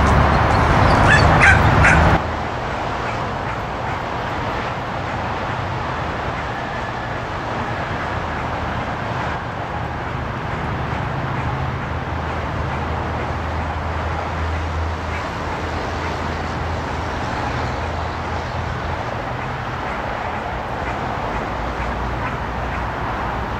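Dogs barking now and then over a steady outdoor background noise with a low hum. A louder stretch of noise in the first two seconds cuts off suddenly.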